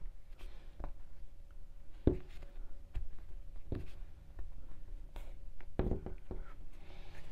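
Crochet hook and macrame yarn being worked: soft rustling with scattered light clicks.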